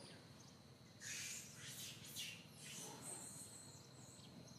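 Baby macaque giving a short run of high-pitched squealing cries, starting about a second in and lasting a couple of seconds.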